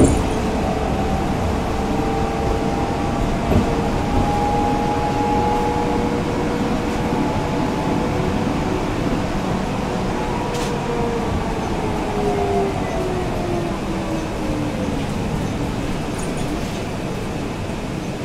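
Inside a 2014 Nova Bus LFS city bus under way: steady rumble of the Cummins ISL9 diesel and road noise, with a whine from the driveline. The whine holds steady, then glides down in pitch over several seconds in the second half.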